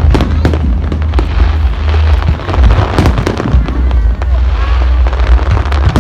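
Aerial fireworks going off: a rapid, irregular run of sharp bangs and crackles over a heavy, continuous low rumble.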